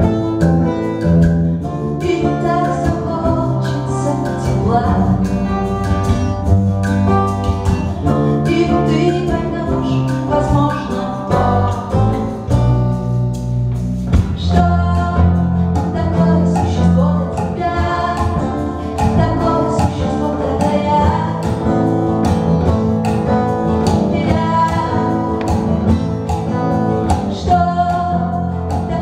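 Live band music with a steady beat: a woman singing over acoustic guitar, hollow-body electric guitar, upright double bass and drums.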